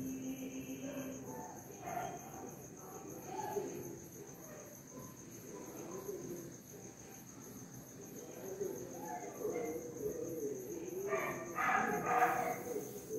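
Insects trilling: a steady, high-pitched call pulsing at an even rate, with no break. Indistinct lower background sounds sit beneath it and grow louder near the end.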